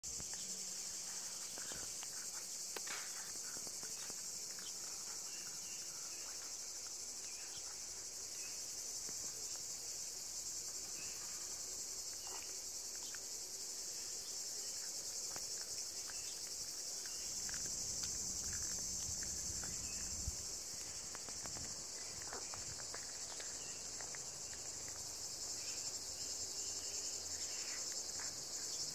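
A steady, high-pitched chorus of insects, with irregular short crunches and clicks of a cat chewing a raw chicken neck, bone and all, close by.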